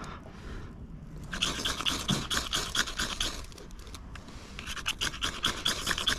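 Rapid metal-on-metal scraping strokes: a knife scraped hard along a fire-starting rod to throw sparks onto feather and twig tinder. There are two runs of strokes, the first about a second in and the second about halfway through, after a short pause.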